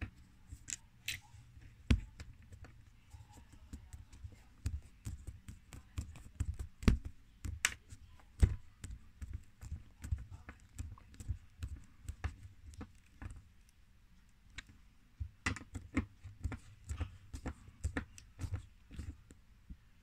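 Screw being driven by hand with a screwdriver through a cupboard hinge plate into a wooden dowel that plugs the old hinge hole. It makes irregular clicks and small knocks from the tool and the hand working it, with a short pause about two-thirds of the way through.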